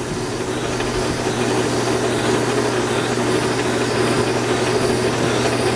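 Small metal lathe running steadily while 320-grit abrasive paper is held against the spinning brake master cylinder piston to polish out its scratches. It is a constant motor hum under an even rubbing hiss.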